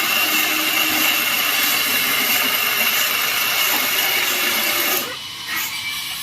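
Sawmill power saw cutting through wood, a steady high-pitched whine that drops away suddenly about five seconds in.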